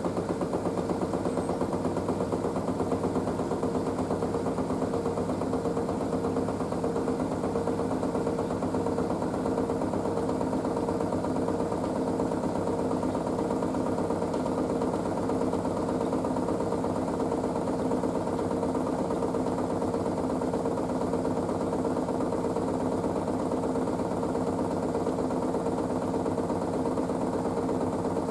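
Panasonic front-loading washing machine running on its wool cycle: a steady mechanical hum with two evenly pulsing tones and a fine, fast rattle.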